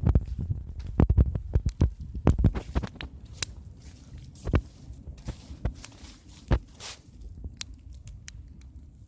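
A fire crackling: irregular sharp pops, thick in the first few seconds and thinning out toward the end, over a low rumble.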